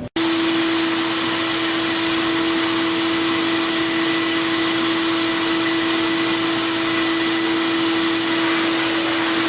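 Media blast cabinet running: compressed air and abrasive hiss steadily from the blasting nozzle, over the steady hum of the cabinet's machinery. The hiss starts suddenly just after the beginning.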